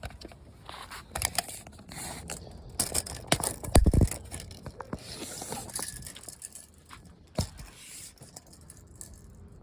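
Steel tape measure being pulled out and handled: scraping with many sharp clicks and rattles, and one heavy thump about four seconds in.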